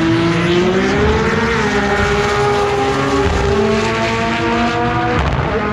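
Drag racing car engine revving hard: the pitch climbs over the first second or so and holds high, then drops sharply near the end and climbs again.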